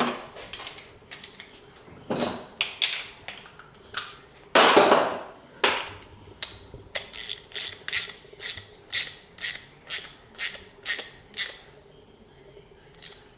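Ratchet wrench tightening a bolt on the shifter: a few longer ratcheting strokes, then a regular run of short clicks about two a second that stops near the end.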